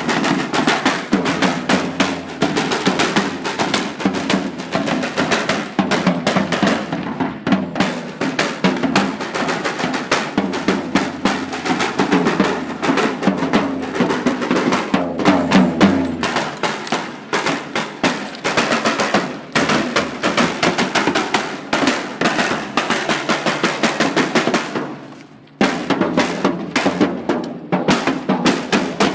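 A percussion group playing drums together, fast dense strokes, with a short break about 25 seconds in before the playing picks up again.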